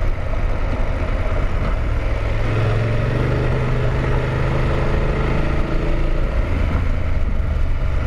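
BMW F850GS Adventure's parallel-twin engine running steadily under light throttle as the motorcycle rides up a dirt road, its hum firming up a few seconds in, with wind rushing over the microphone.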